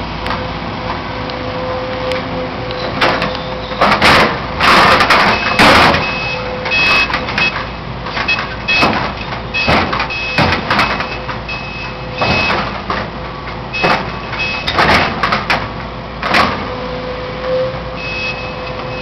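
Heavy demolition machinery running steadily, with a reversing alarm beeping on and off and repeated crashes and clatter of breaking debris, loudest about four to six seconds in.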